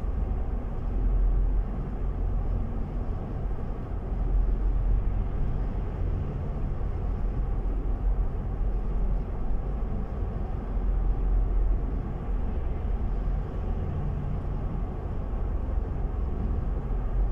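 Steady low rumble of a car's tyres and engine at highway speed, heard from inside the moving car.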